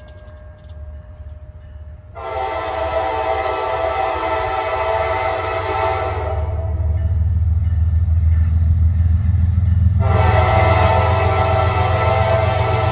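Locomotive air horn sounding two long blasts, each a chord of several notes, the first about 2 s in and the second about 10 s in, as the test train nears a grade crossing. Beneath them the locomotives' diesel engines rumble, growing louder as the train approaches.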